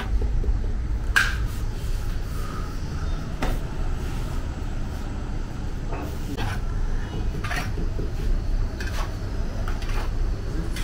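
Metal hook and scraper clicking and scraping against the breads and the clay wall as flatbreads are pried off the inside of a tandoor, about seven sharp strokes spaced a second or more apart. A steady low rumble runs underneath.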